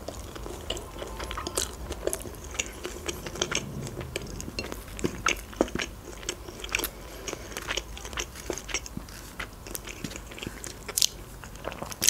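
A person chewing a chicken shawarma wrap with wet mouth clicks and lip smacks, then biting into it again near the end.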